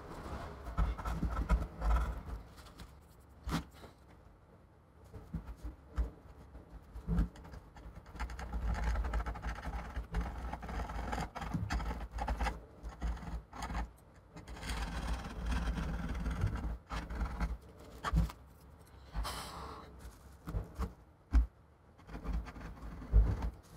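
A flat pry tool scraping and rubbing along the iMac's aluminium housing to clear off old sticky display adhesive. It comes in uneven stretches, with scattered clicks and light knocks of the tool and hands against the chassis.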